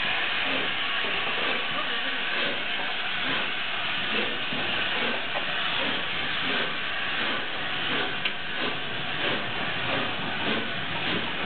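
Gresley A4 Pacific steam locomotive 60019 Bittern pulling slowly away, with a loud, steady hiss of steam from around its cylinders.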